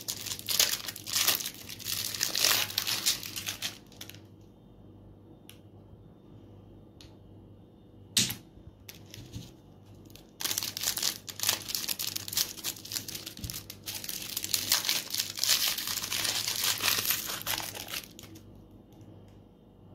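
Clear cellophane lollipop wrappers crinkling and tearing as they are cut with scissors and peeled off. The crinkling comes in two long stretches, the first few seconds and then about ten to eighteen seconds in, with a quieter spell between them broken by a few sharp clicks.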